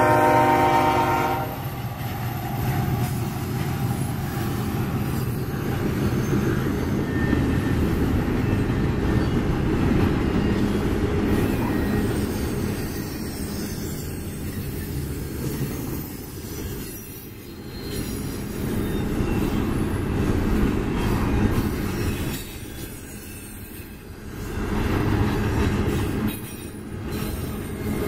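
Freight locomotive horn sounding and cutting off about a second and a half in. Then the trailing EMD SD70-series diesel locomotives and double-stack container well cars roll past with a steady rumble of wheels on rail and a faint wheel squeal. The rumble dips a couple of times as gaps between cars go by.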